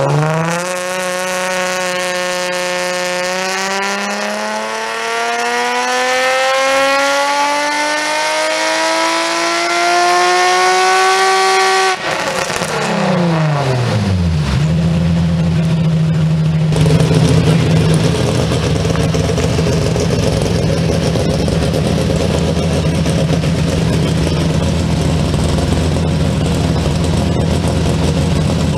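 Built naturally aspirated Nissan 350Z 3.5-litre V6 with big cams, run under load on a hub dynamometer: the revs jump up, hold briefly, then climb steadily in one long full-throttle pull for about nine seconds. About twelve seconds in the throttle closes abruptly, the revs fall away over a couple of seconds, and the engine settles into a steady idle.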